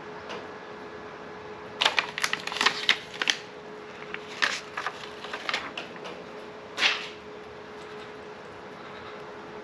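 Clear plastic backing film crackling in clusters of sharp crinkles as it is peeled off the adhesive back of a flexible rubber tank decal. The crinkles come in three bursts: about two seconds in, again around four to six seconds, and once near seven seconds, over a steady faint hum.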